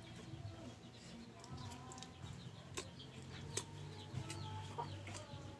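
Chickens clucking, with a few short crunches from chewing unripe green mango.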